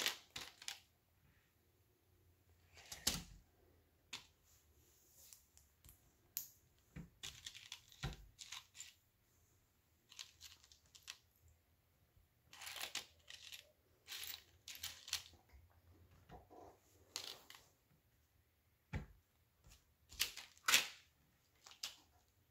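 Small plastic Lego pieces clicking and clattering as they are picked from a loose pile and pressed together by hand, in irregular short clicks with faint rustling between them. A few sharper clicks stand out, a few seconds in, around the middle and near the end.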